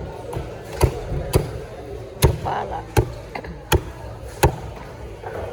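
A heavy knife chopping through a rock snapper on a cutting board: six sharp chops at an uneven pace, one every half second to a second.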